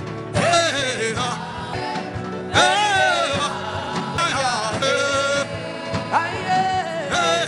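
Worship music: a voice singing long, gliding wordless phrases over sustained instrumental chords.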